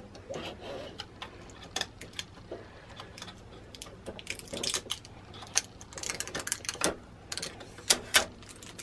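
Irregular small clicks and taps of fingers working at the plastic carriage and rollers of a Silhouette Cameo 4 cutting machine while picking out packing tape, with a few brief soft rustles.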